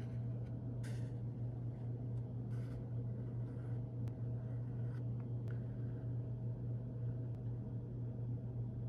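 Thread being drawn through the stitch holes of a leather knife sheath during hand stitching: a few short scratchy rasps, over a steady low hum.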